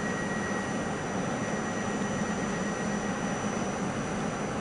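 Steady hum and hiss from a standing electric push-pull train's auxiliaries (ventilation fans and converters), with thin, unchanging high tones.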